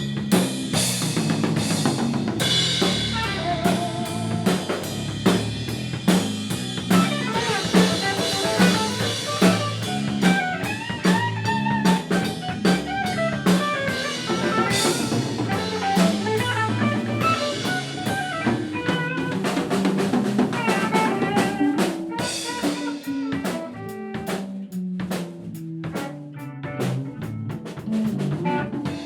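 Punk rock band playing, with the drum kit prominent over bass and electric guitar; in the last few seconds the music thins out to more spaced drum hits.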